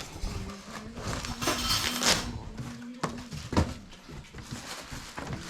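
Handling of metal tools and bike parts during assembly: clinks and knocks, with a rustling scrape about a second and a half in and a sharp knock about three and a half seconds in, over a faint low hum.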